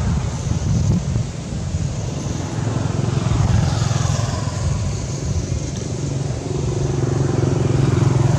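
Steady low rumble of a motor vehicle engine running.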